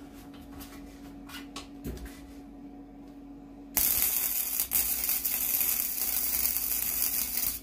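Wire-feed welder arc crackling and hissing as a bead is run over a crack in a steel lawn mower deck. The arc starts suddenly about four seconds in and stops abruptly near the end. Before it there are only light clicks and a steady low hum.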